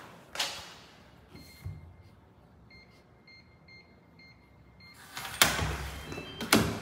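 Keypad of a digital door lock beeping: a string of short, high electronic beeps as the code is entered. Near the end comes a louder clatter as the lock releases and the door is pushed open.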